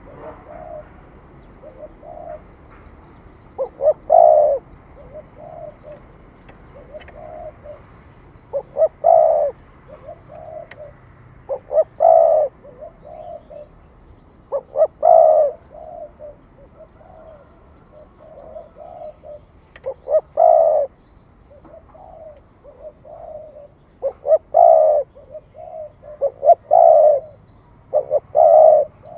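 Spotted dove cooing over and over, a louder coo phrase every few seconds with shorter, softer notes in between.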